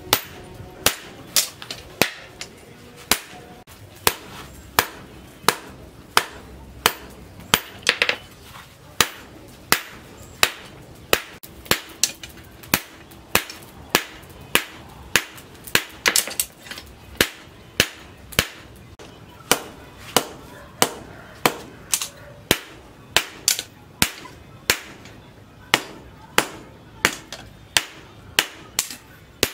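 Hand hammer forging a red-hot steel knife blade on a cylindrical post anvil: steady, sharp metal-on-metal blows, about two a second, each with a short ring.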